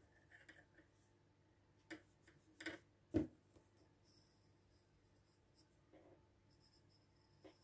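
Graphite pencil drawing faintly on paper, with a few soft knocks on the wooden desk about two to three seconds in, the last the loudest.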